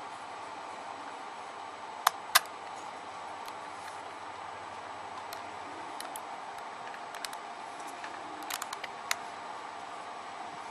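Light clicks and taps of a Sony Cyber-shot compact camera body being handled in gloved fingers, over a steady hiss. Two sharp clicks come about two seconds in, and a cluster of smaller ones near the end.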